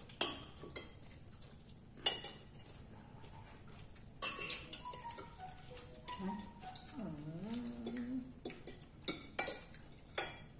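Metal spoons and forks clinking and scraping on ceramic plates and bowls as people eat, in irregular taps throughout. A short murmur of a voice comes a little past the middle.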